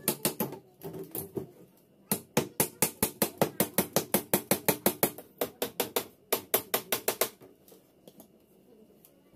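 Small nails being tapped into plywood on a wooden frame with a pair of pliers used as a hammer: quick runs of light taps, about five a second, in several bursts that stop about three quarters of the way through.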